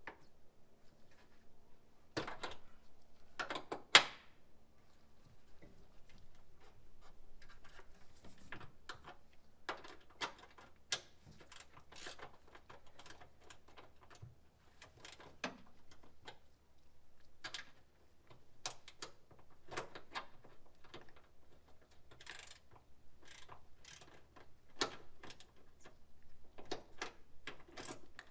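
Irregular clicks, clanks and knocks of hand tools and parts being handled during engine disassembly work, with one sharper knock about four seconds in.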